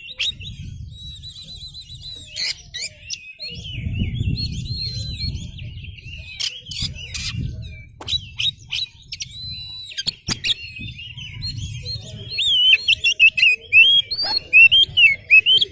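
Oriental magpie-robin (kacer) singing vigorously: a continuous string of varied whistled phrases and quick trills, ending with a run of loud, sharp notes over the last few seconds. A low rumble runs underneath.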